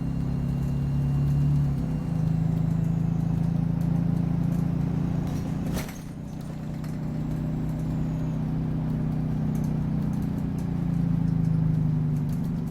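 Optare Solo bus engine pulling steadily, heard from inside the passenger saloon. The engine note shifts about two seconds in and dips briefly about six seconds in, with light clicks and rattles scattered throughout.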